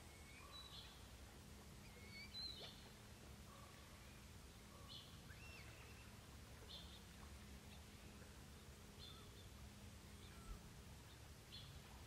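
Faint, short bird calls, a single high chip or note every second or two, over a low steady background hum.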